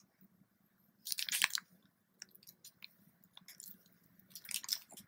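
Clear plastic packaging of a needle-felting kit crinkling as it is handled: two short crackly bursts, about a second in and again near the end, with small clicks between.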